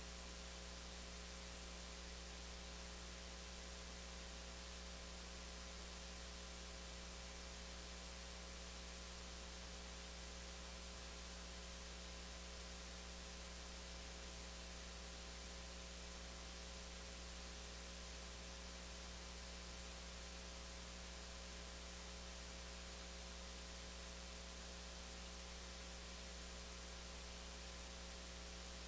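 Steady electrical mains hum with a faint hiss, unchanging throughout and with nothing else over it.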